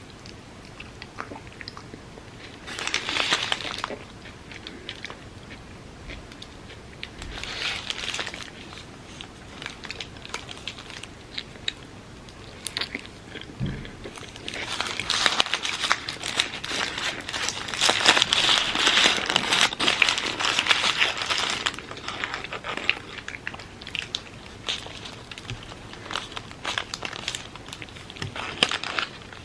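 Close-miked eating: bites and crunchy, wet chewing in several bouts, the longest and loudest a little past the middle.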